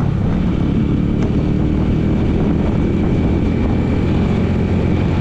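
Motorcycle engine running steadily while riding at road speed, mixed with a steady rush of wind and road noise.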